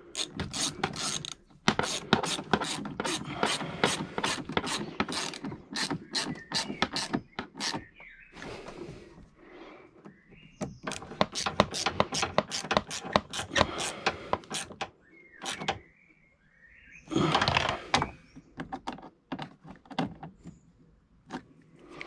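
Socket ratchet clicking in quick runs of strokes as bolts in the engine bay are worked, with short pauses between runs. About three-quarters through there is a louder clatter of handling.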